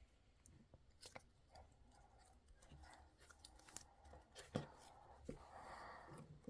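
Faint scattered clicks and small taps, one sharper click about four and a half seconds in, and a soft rustle near the end: grape ice cream and its packaging being handled.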